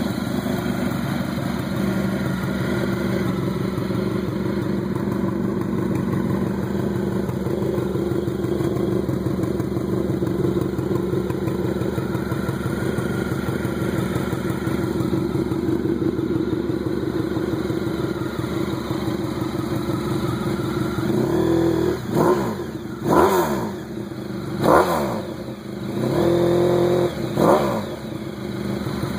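Honda VFR1200's V4 engine idling steadily through a custom exhaust. Near the end it is revved in a few quick throttle blips, each rising and falling in pitch, the last held a little longer.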